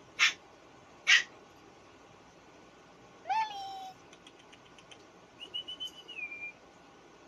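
Shih tzu puppies playing: two short, sharp yips in the first second or so, then a short whine that rises and holds a little past three seconds in, and a fainter, thin, high whine that drops at the end, around six seconds in.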